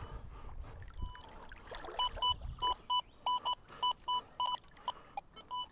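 Metal detector beeping repeatedly on a strong target, a string of short, same-pitched beeps about three a second with a few gaps. The target reads near the top of the scale and turns out to be a deeply buried aluminium can.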